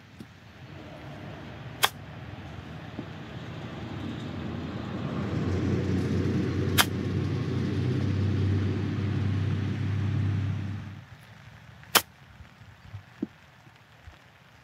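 Three crisp clicks of a wedge striking a golf ball chipped from the rough, about five seconds apart. Behind them a low motor rumble swells over several seconds and cuts off suddenly shortly before the third strike.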